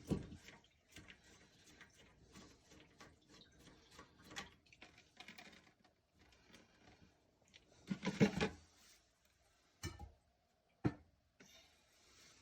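Light clicks and knocks of toilet tank parts and tools being handled, with a louder clatter about eight seconds in and two sharp single knocks near the end.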